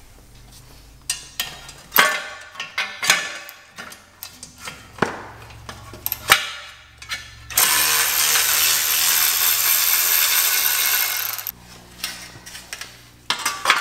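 Cordless ratchet undoing the 10 mm bolts of a car's brake dust shield. First come scattered metal clicks and clinks, then the ratchet runs steadily for about four seconds, stopping near the end with a few more clicks.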